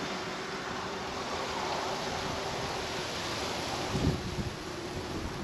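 Steady wind noise on the microphone over a faint, steady hum of the distant double-headed diesel locomotives approaching. A brief low thump of wind on the microphone comes about four seconds in.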